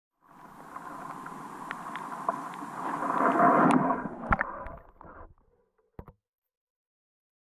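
Water sloshing and rushing around a GoPro in its waterproof housing as it is picked up and lifted out of the stream, growing louder and then cutting off. Sharp knocks of handling on the case come about four and a half seconds in and twice around six seconds.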